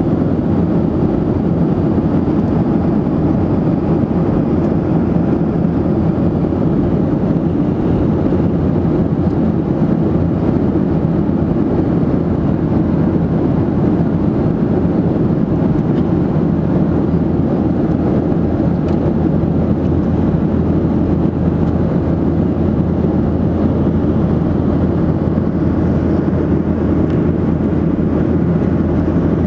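Steady cabin noise of a Boeing 737 jet airliner in its climb: an even, deep rush of jet engine and airflow heard from inside the cabin, unchanging throughout.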